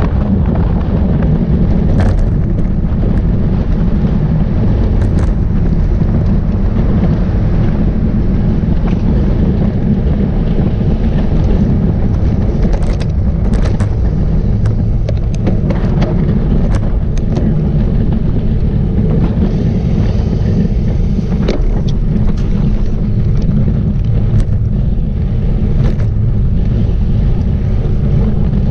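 Strong wind buffeting the microphone of a moving road bike: a loud, steady low rumble, with scattered small clicks and ticks through it.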